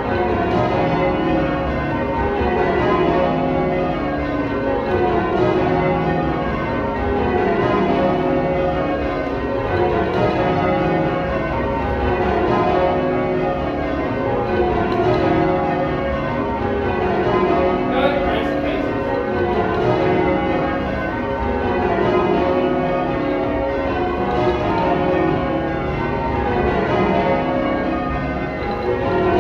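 Change ringing on a ring of twelve church bells with a 28 cwt tenor in C#. The bells strike one after another in steady rows, each row stepping down in pitch from treble to tenor, over and over.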